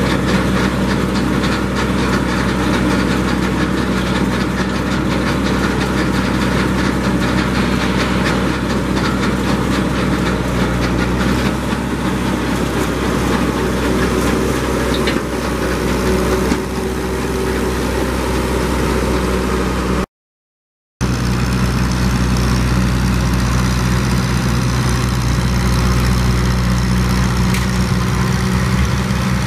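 A 1958 Massey Ferguson 35's four-cylinder Continental gas engine running steadily, with the Farm King three-point snowblower working behind it. The sound cuts out for about a second two-thirds of the way in, then the same engine sound resumes.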